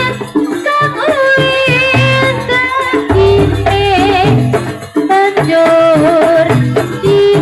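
Javanese jaranan gamelan music playing loudly: hand-drum (kendang) strokes under a wavering, ornamented melody, with a deep low stroke about three seconds in.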